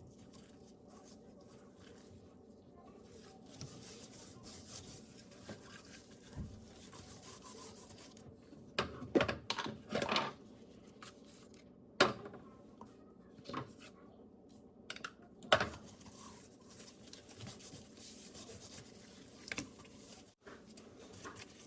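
Hands working at food or utensils: soft rubbing and scraping, with a few sharp knocks and clinks spread through, over a steady low hum.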